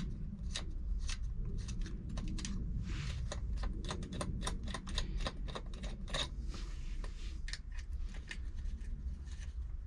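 Irregular small metallic clicks and ticks, with a couple of short rustles: a hex key working bolts out of a motorcycle engine side cover and the loose bolts being handled.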